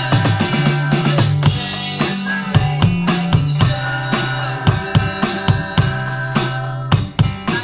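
Drums played on an electronic drum kit along with a backing song: a steady beat of kick, snare and cymbal strokes over a bass line and held chords, with a cymbal crash about a second and a half in.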